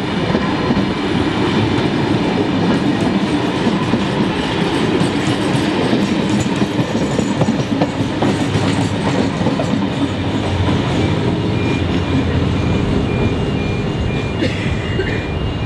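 Heritage passenger carriages rolling past at speed: a steady rumble of steel wheels on rail with clacking over the rail joints, easing slightly as the last carriage goes by near the end.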